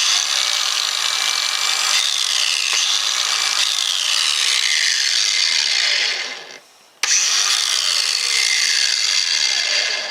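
Ryobi 18V ONE+ 4-1/2 in. cordless angle grinder with a grinding wheel, running free with no load at full speed. About six seconds in it is switched off and winds down with a falling whine. It starts again abruptly about a second later and runs until it winds down again at the end.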